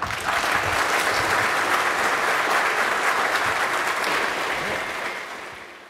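Audience applauding, steady and dense, fading away over the last second or so.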